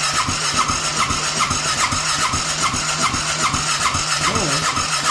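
Honda Rincon 650 ATV engine being cranked over on its electric starter without catching: a steady starter whine that dips about two or three times a second as the engine comes up on compression. Lack of fuel in the nearly empty tank is taken to be why it won't run.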